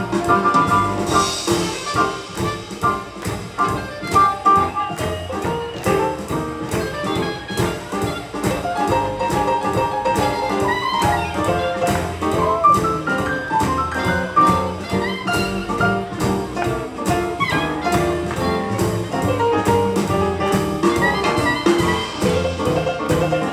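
Live small swing jazz band playing an up-tempo number: horns such as trumpet and saxophone carry the melody over acoustic guitar, double bass and drums keeping a steady beat.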